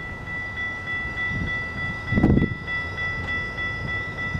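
Level-crossing warning bell ringing steadily as the tail of a Rocky Mountaineer passenger train passes, its wheels rumbling over the rails with a louder low thump about two seconds in.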